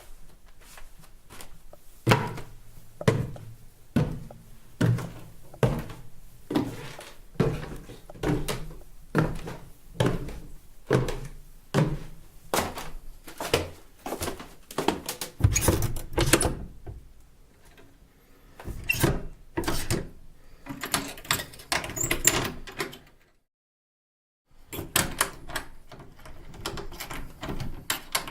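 Footsteps in soft home slippers, a steady tread of about one step a second on wooden stairs. This is followed by a busier clatter of door-handle and lock sounds, and then a short cut to total silence before the steps go on.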